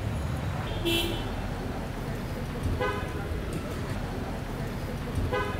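Street traffic with a steady low rumble and short car-horn toots, about a second in, near three seconds and again near the end.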